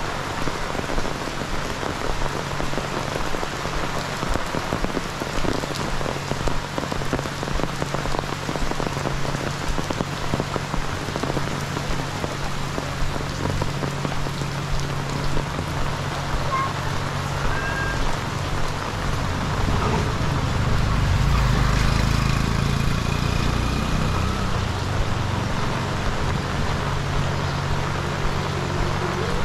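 Heavy rain falling steadily, a dense patter of drops striking nearby surfaces. About two-thirds of the way through, a low rumble swells for a few seconds and fades.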